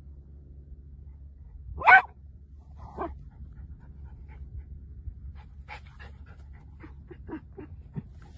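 A small dog digging with its head in a burrow: one sharp bark about two seconds in, a weaker one a second later, then a run of short quick breaths and scrapes, over a steady low rumble.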